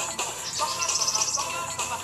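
Music with a singing voice, with a brief fast high trill about halfway through.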